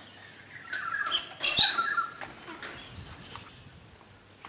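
Birds squawking and chirping, loudest in a burst of harsh calls from about one to two seconds in, with one sharp knock in the middle of it.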